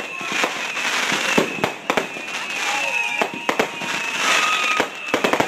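Consumer aerial fireworks going off in a rapid barrage: irregular sharp bangs of bursting shells, with a quick cluster of bangs near the end. High whistling tones run through it.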